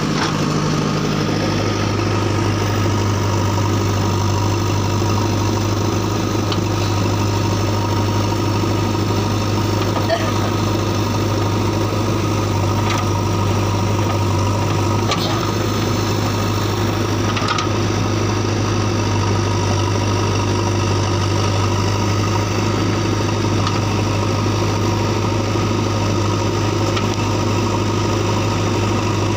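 JCB 3DX backhoe loader's diesel engine running steadily while it digs and loads soil, with a few faint knocks.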